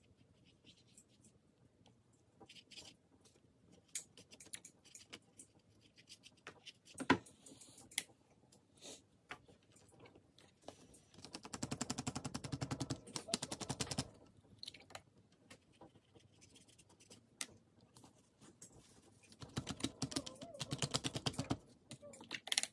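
Two spells of rapid scratchy rubbing against watercolor paper, each lasting about two seconds, the first about halfway through and the second near the end, with scattered light taps of brush and hands on the table between them, the loudest about seven seconds in.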